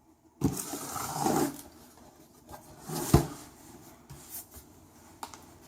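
A cardboard box being slit and handled with a utility knife: a rasping rub lasting about a second, then a sharp scrape-click about three seconds in and a few light knocks.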